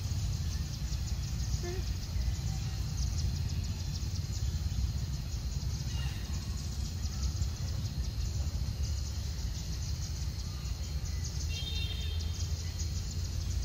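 Steady outdoor background noise: a low rumble under a high, flickering hiss. A brief high chirping call comes near the end.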